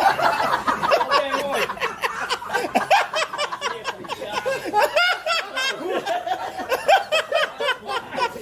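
People laughing in quick, choppy bursts of repeated laughs.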